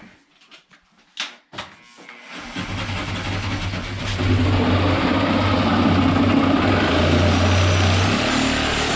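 Power saw cutting through drywall: a couple of clicks, then the motor runs up and cuts steadily, louder once the blade is fully into the board, and stops suddenly at the end.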